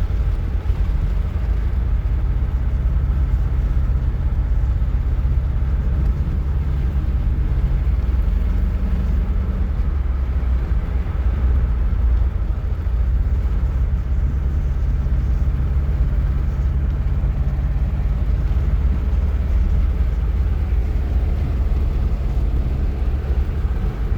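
Truck driving along, heard from inside the cab: a steady low rumble of road and engine noise, with a low engine hum that comes and goes.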